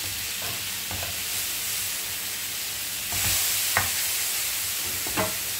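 Marinated beef chops sizzling steadily in an oiled grill pan as the last of the added water cooks off, a little louder about halfway through, with a few light taps and scrapes of a metal spatula.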